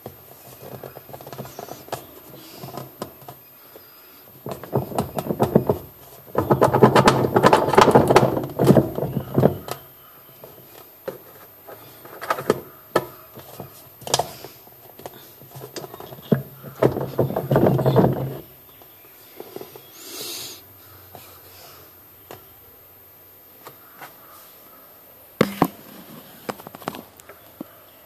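Plastic pulsator at the bottom of a top-loading washing machine tub turned and worked by hand, making rubbing, scraping and clicking in two long spells, about five and seventeen seconds in, with a low steady hum under the loudest stretches.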